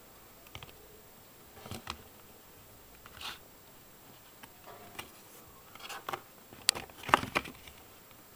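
Pages of a cardboard board book being handled and turned. There are scattered soft rustles and light taps, sparse at first and busiest a little before the end.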